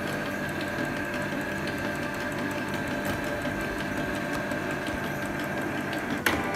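Inkjet printer running, a steady mechanical whir with a constant high whine. A sharp click near the end.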